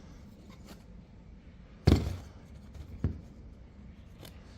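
A few knocks: a sharp knock about two seconds in, a lighter one about a second later, and a faint tap near the end.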